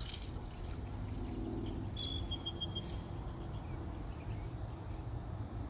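Birds chirping: several runs of short, high-pitched repeated notes between about one and three seconds in, over a steady low background rumble.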